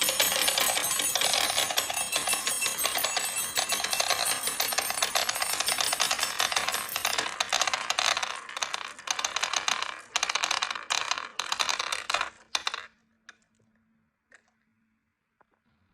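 Many marbles clattering down a marble run track as a dense rattle of clicks. After about seven seconds it thins into separate bursts, then stops short near the end, leaving a few lone clicks.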